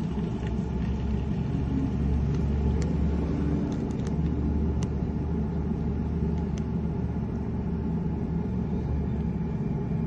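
Mazda CX-9's V6 engine idling with a steady low rumble, a few faint clicks over it.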